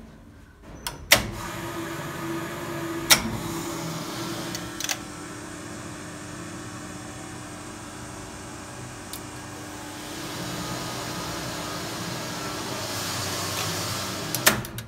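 Hydraulic lift machinery on a test run with a new OMAR valve block: relay and contactor clicks about a second in, then a steady hum that holds one tone for over ten seconds and stops with more clicks near the end.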